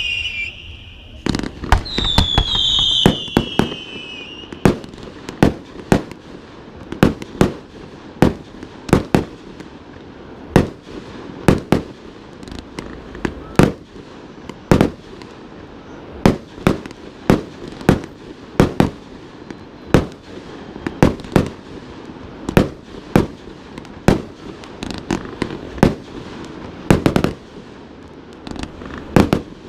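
Fireworks display: aerial shells bursting in a steady run of sharp bangs, about one to two a second, with crackling haze between them. A few falling whistles sound in the first four seconds.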